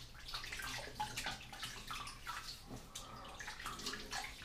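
Faint water splashing at a bathroom sink: water scooped from a running tap by hands, with irregular splashes and drips, wetting the face before a shave.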